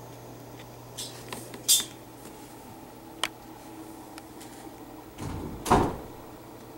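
Handling noises: a few sharp clicks and knocks, one loud one about two seconds in, then a longer, heavier bump near the end, over a steady low hum.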